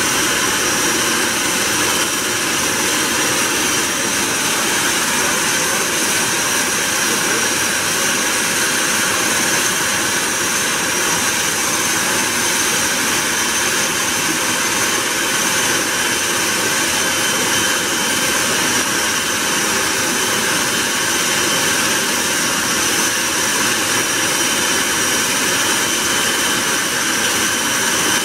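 Twin turboprop engines of a military transport aircraft running at low power on the ground. A steady high-pitched turbine whine sits over a dense, even rush of propeller and exhaust noise.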